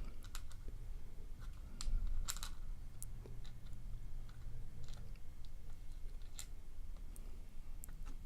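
Scattered light clicks and taps of tiny pins and springs being handled and worked out of a disassembled pin-tumbler lock. A low steady hum sits underneath, and there is a slightly louder patch of handling about two seconds in.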